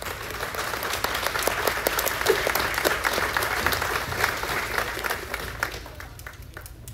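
Audience applauding: many hands clapping, swelling over the first second and dying away near the end.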